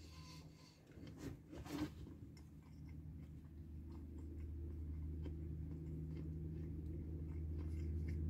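A person biting into and chewing a KFC mac and cheese wrap: a few soft crackles and clicks in the first two seconds, then chewing, over a steady low hum that grows a little louder.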